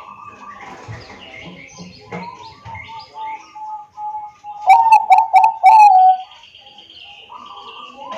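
Zebra dove (Bangkok perkutut) cooing: softer scattered notes, then a loud run of four quick coos about five seconds in. A steady high buzz follows near the end.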